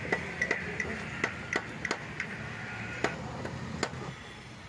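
A Hyundai i10's Valeo alternator is being wiggled and knocked loose from its mounting bracket, making about a dozen sharp, irregular metallic clicks and knocks.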